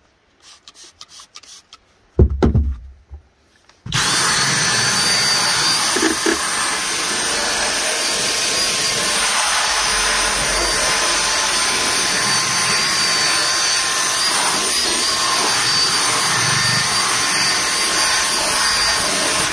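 A few quick squirts from a trigger spray bottle, then a thump. From about four seconds in, a cordless drill with a round scrub brush runs steadily, its bristles scrubbing carpet, and cuts off at the end.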